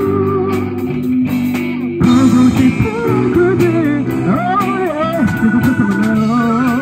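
Live rock band playing through a PA: electric guitars, bass and drums with a steady cymbal beat, and a singer's voice over them.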